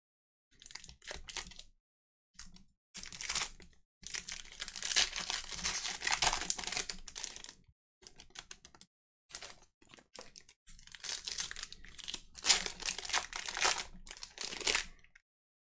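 Foil trading-card pack wrappers being torn open and crinkled by hand, in bursts of crackling with short pauses between, the longest two in the middle and toward the end.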